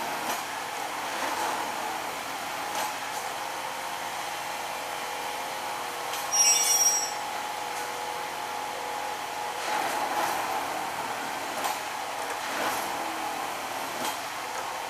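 Railway track tamping machine running, a steady mechanical hum with a constant whine that swells now and then. About six and a half seconds in comes a short, loud, high-pitched squeal.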